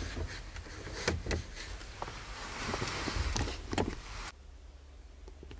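Clicks, knocks and rustling inside an SUV's cabin as the overhead dome lights are switched off by hand. About four seconds in the sound drops abruptly to a low hush.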